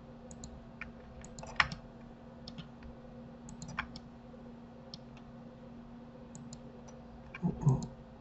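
Computer keyboard keys and mouse clicks tapping irregularly, with a louder click about a second and a half in and a brief louder low knock near the end, over a steady low electrical hum.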